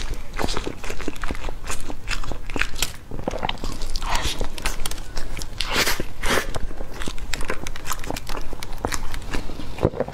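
Close-miked biting and chewing of a flaky-pastry egg tart: the pastry crackles and crunches in dense little clicks, with louder crunchy bites about four and six seconds in.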